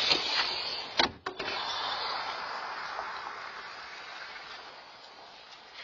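A front door clattering: a couple of sharp knocks about a second in, followed by a steady hiss that slowly fades.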